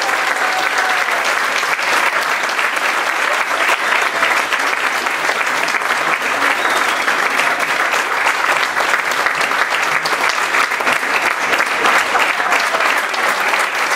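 Audience applauding: many hands clapping steadily, without letup.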